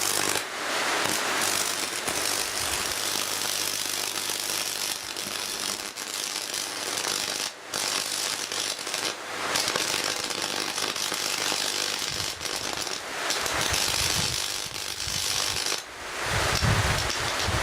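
High-voltage arc from a microwave oven transformer burning into a grounded screwdriver: a dense, steady crackling buzz over a mains-frequency transformer hum. The arc cuts out briefly twice, and the hum gives way to low rumbling about two-thirds of the way through.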